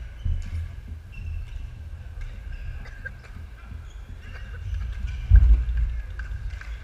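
Badminton rally on a wooden sports-hall floor: players' footsteps thudding and shoes squeaking, with sharp clicks of racket hits on the shuttlecock. The loudest sound is a heavy low thump of a footfall about five and a half seconds in.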